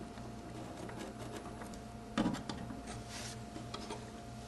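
Faint scratching of a pencil marking drywall around a metal low-voltage mounting bracket held against the wall, with a few light taps, the clearest about two seconds in, and a short scratch a little after three seconds.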